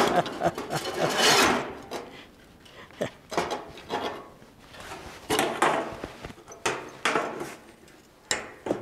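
Thin sheet-metal inner fender panel being shifted and clamped with locking pliers on a workbench: metal scraping and rubbing in several short swells, with a few sharp clicks and knocks.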